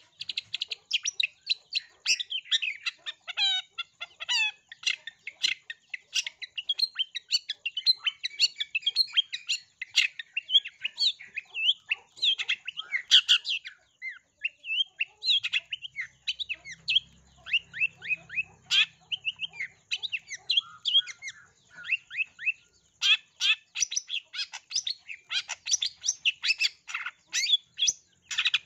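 Long-tailed shrike (cendet) singing a rapid-fire song: a near-continuous stream of short, sharp chirps and trills that thins out for a few seconds midway. Its song is filled with mimicked sparrow calls.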